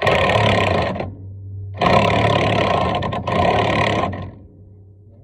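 Impact wrench run in two bursts on the truck's front brake and spindle hardware: a short burst, then a longer one with a brief break in the middle.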